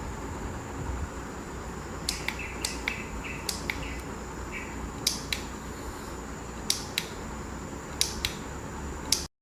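A series of sharp clicks, roughly a dozen, starting about two seconds in, several of them followed by a short electronic beep, over a steady high whine.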